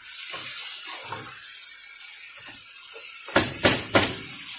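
Mutton and spice masala sizzling in a pot while a wooden spoon stirs and scrapes through it with soft thuds, then three sharp knocks of the spoon against the pot near the end.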